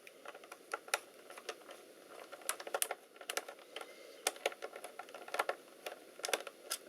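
Irregular small clicks and taps of a miniature screwdriver and hands working at the screws and plastic case of a laptop being taken apart.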